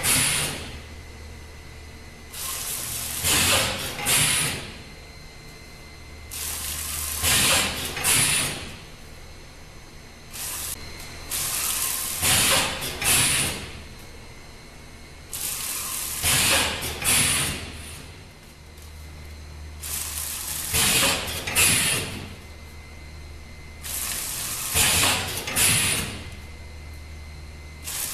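Samfull Q1-520 vertical form-fill-seal packing machine with its multihead combination weigher running through its bagging cycle, one bag per cycle. A steady low hum is broken about every four and a half seconds by a loud burst of hissing and clatter lasting a second or two.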